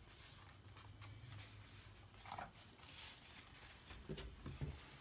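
Faint rustling of wired ribbon being unrolled from its spool and handled, with a few soft knocks near the end as the sign board is moved on the table.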